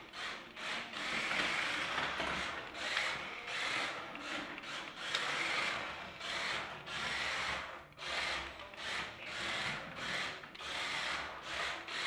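DODOELEPHANT 1:24 scale 4WD RC car's small electric motor and gears whirring in bursts of about a second as it drives forward and back, its tyres rubbing on the tile floor between short pauses.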